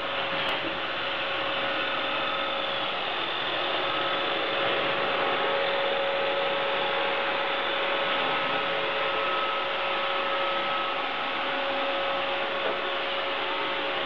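iRobot Roomba 580 robot vacuum running over a hard floor: the even whir of its vacuum motor and spinning brushes, with a steady hum in it.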